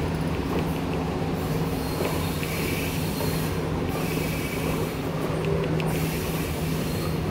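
Passenger train running along the track, heard from inside a coach with an open window: a steady rumble with a constant low hum, faint wheel squeal now and then and a few light clicks from the wheels.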